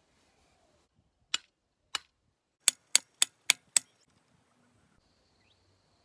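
Steel picket being knocked into the ground with a hammer: seven sharp metallic strikes, two spaced single blows, then five quick ones in a row.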